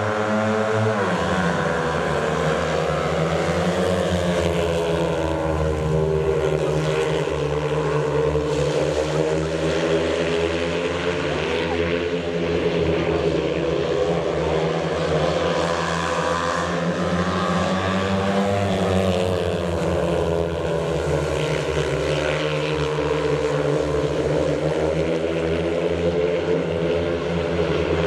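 Several speedway motorcycles' 500 cc single-cylinder methanol engines racing together on a loud, continuous note. Their pitch rises and falls over and over as the riders open and close the throttle around the laps.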